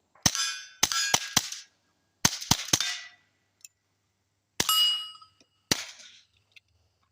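Ruger Mark IV 22/45 Lite .22 LR pistol fired through a Dead Air Mask suppressor: about ten quiet shots in three quick groups, several followed by a brief metallic ring.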